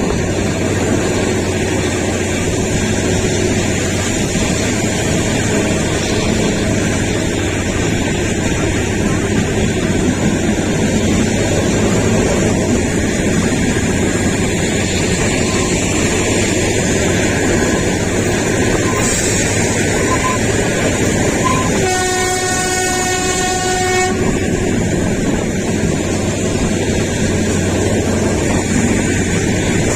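Kalka–Shimla narrow-gauge toy train running along the track with a steady rumble, and its horn blowing once for about two seconds, most of the way through.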